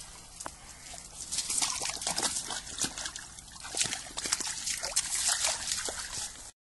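Boxer dog splashing through shallow pond water: a run of irregular splashes and sloshes that cuts off suddenly at the end.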